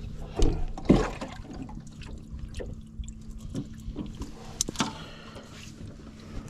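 Water sloshing and splashing with scattered knocks and clicks, the loudest about half a second and one second in.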